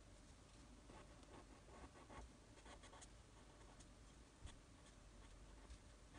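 Faint scratching of a pen tip on paper in short, quick strokes, inking fur and horns on a drawing. A single light knock about four and a half seconds in.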